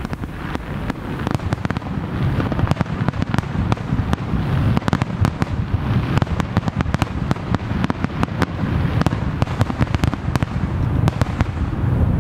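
Fireworks going off in a rapid barrage: many sharp bangs and crackles a second over a continuous low rumble, thickening after about a second and a half.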